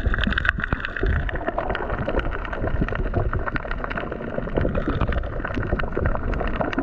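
Underwater sound through a GoPro's housing: a steady rush of moving water with dense crackling clicks throughout.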